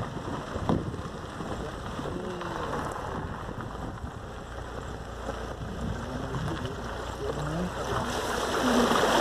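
Wind blowing across the microphone, a steady rushing noise that grows louder near the end.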